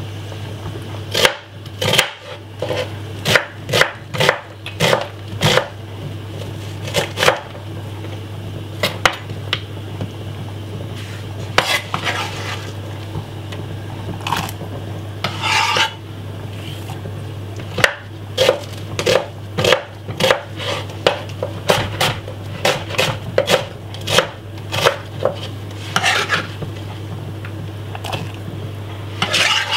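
Kitchen clatter at a stainless steel cooking pot: irregular sharp knocks of utensils and knife work, some in quick runs, over a steady low hum.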